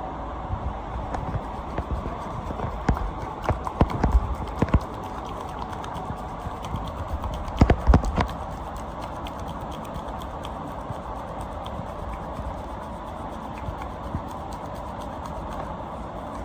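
Back massage: scattered sharp clicks and knocks from hands working on a person's back, over a steady hiss. A cluster comes about four seconds in and the loudest pair near eight seconds, with lighter ticks after.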